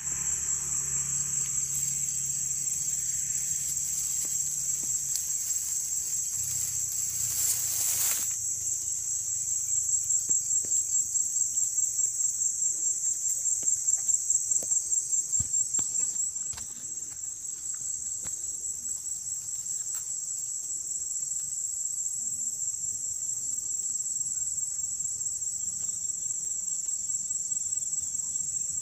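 Insects trilling outdoors: a steady high-pitched insect chorus that pulses in level, with a brief burst of broad noise about eight seconds in.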